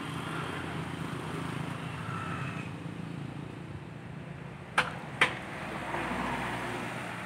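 A steady engine hum, with two sharp clicks about five seconds in.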